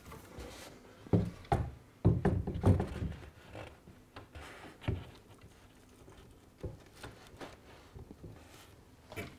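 Dull wooden knocks and thunks as a model railway baseboard section is shifted and seated on its timber supports: a quick run of knocks between about one and three seconds in, then a few single softer knocks.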